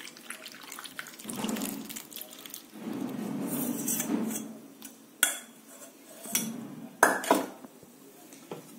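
Cooled beetroot-and-spice brine pouring through a stainless-steel mesh strainer into a ceramic bowl of onions, in two spells over the first four seconds or so. Then sharp metallic clinks about five and seven seconds in, as the steel strainer and bowl are set down.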